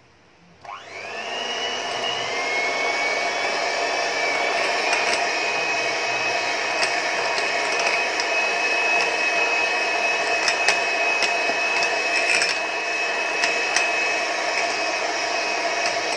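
Electric hand mixer switched on about half a second in, its motor whine rising as it spins up, then running steadily as the beaters whip fresh cream and milk powder in a glass bowl. A few sharp clicks break in here and there.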